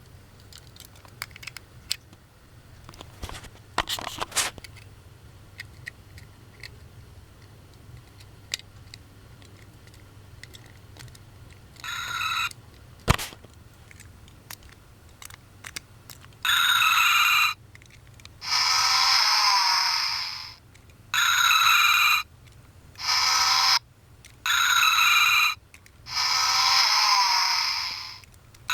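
Small clicks and handling rustle, then a capsule-toy sound keychain pressed again and again, playing a short recorded clip through its tiny, thin-sounding speaker about seven times, each play lasting one to two seconds.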